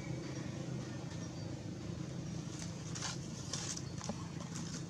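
A steady low motor hum, with dry leaves crackling and rustling under a macaque's footsteps in the second half.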